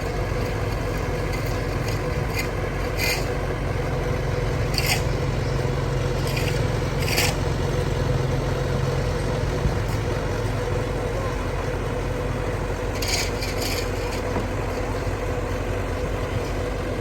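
An excavator's diesel engine running steadily, with a few short, sharp scraping or knocking sounds from the digging work.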